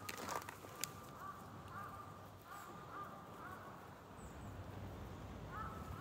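A crow calling: a string of short caws at a steady pitch, about six in all, with a pause around four seconds in. A couple of sharp clicks come within the first second.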